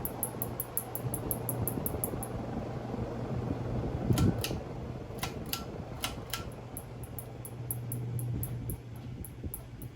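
Casablanca Four Seasons ceiling fan running on high speed through its Slumber Quiet speed control: a steady motor hum with the rush of air from the blades. There is a soft bump about four seconds in, then a few light clicks.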